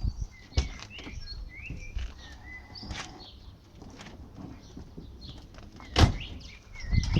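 Small birds chirping, with a few scattered clicks and one loud thump about six seconds in.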